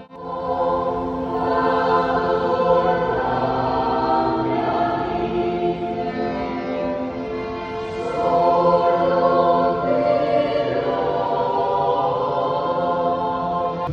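Choir singing a sacred motet in harmony, with long held chords; a new, louder phrase begins about eight seconds in.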